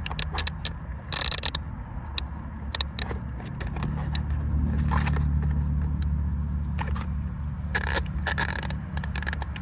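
Metal hand tools being handled, scattered clicks and clinks. A few short scraping, rustling bursts come about a second in and again near the end, over a steady low hum.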